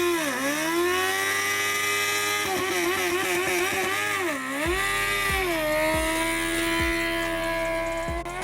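Motorcycle engine held at high revs, its pitch dipping briefly twice and bouncing rapidly for a stretch in the middle. Music with a heavy repeating bass thump comes in about halfway.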